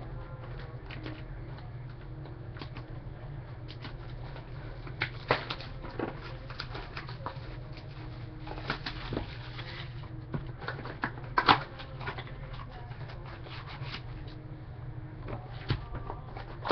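Hands handling trading cards and their packaging: cards sliding and being shuffled, with scattered short crinkles and taps, the sharpest about eleven seconds in, over a steady low hum.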